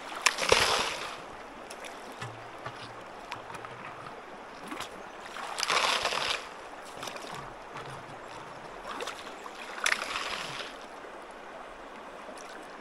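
Creek water running steadily, broken three times by a short, louder rush of noise: about half a second in, near six seconds and near ten seconds.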